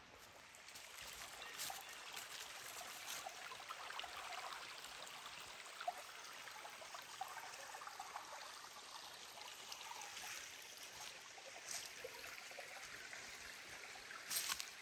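Shallow rocky river trickling and babbling over stones, a steady water sound that grows louder about a second in. A brief, louder rustle comes near the end.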